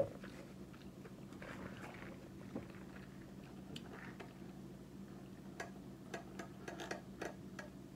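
Faint, close mouth sounds of a person eating and drinking: soft chewing, then sipping through a drinking straw, heard as scattered small clicks over a steady low hum.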